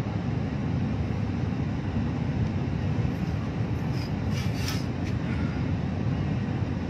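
Steady low road and engine rumble inside the cabin of a moving vehicle.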